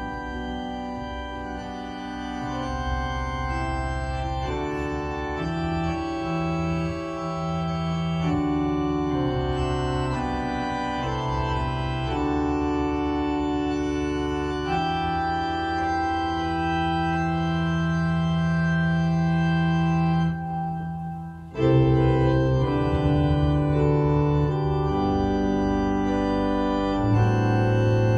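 Church organ playing slow, held chords that change every second or two; about three-quarters of the way through the sound briefly drops away, then comes back in louder.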